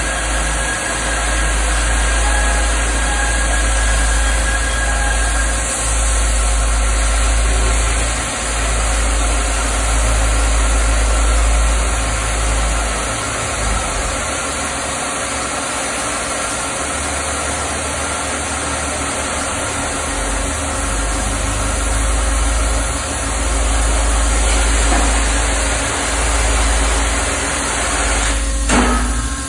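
Peddinghaus ABCM1250 beam coper's cutting torch hissing as it burns through a steel beam, over a low machine hum that cuts out and comes back every few seconds. A short sharp clank near the end.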